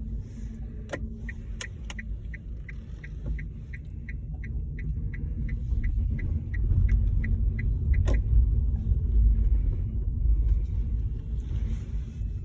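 Road and tyre rumble inside a 2017 Nissan Leaf electric car being driven, with no engine sound, growing louder about halfway through. A regular ticking, about four a second, runs for several seconds and stops about two-thirds of the way in, like a turn-signal indicator, and there are a few sharp clicks.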